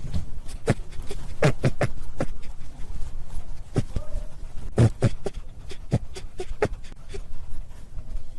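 Rabbit making a quick, irregular run of short sharp clicks and brief low-pitched sounds.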